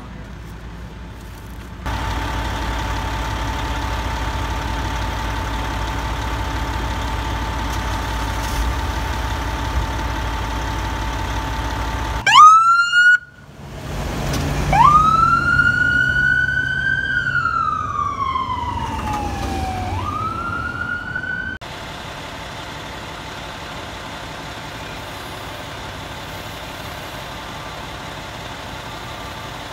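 Ambulance siren wailing: it winds up sharply, sweeps slowly down and climbs again, then cuts off suddenly. Before it, a heavy vehicle engine runs steadily with a steady whine over it.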